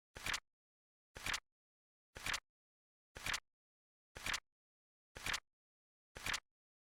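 Flip-clock sound effect: a short flap-click once a second, each a quick double click, seven in a row with silence between.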